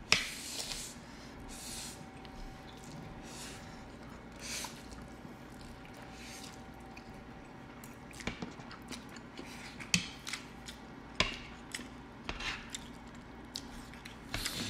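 Close-miked eating of spicy instant noodles: slurps and wet chewing, with sharp clicks and smacks in the second half.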